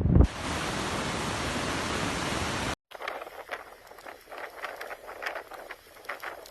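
Steady rushing noise of wind on the microphone, cut off suddenly about three seconds in; then a much quieter stretch of irregular faint ticks and crackles.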